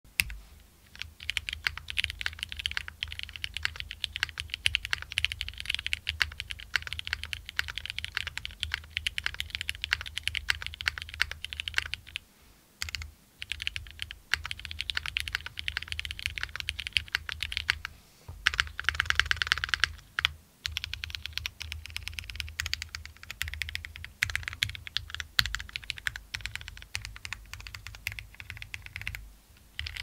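Steady typing on a Peac Design PLX mechanical keyboard: lubed, filmed and polished Cherry MX Black linear switches with 62 g springs on an aluminium plate with plate foam, under GMK ABS keycaps. Rapid keystroke clacks run on with a few short pauses, and the switches still have some audible scratch, as the uploader says.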